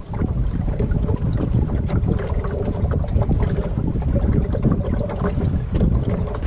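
Wind rumbling over the microphone aboard a wooden John Welsford Navigator sailing dinghy under way, with water washing along the hull.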